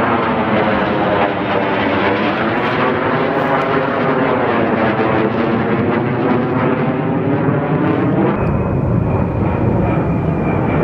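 Loud roar of an airplane flying overhead, the tone sweeping slowly as it passes. About eight seconds in the sound turns deeper and duller.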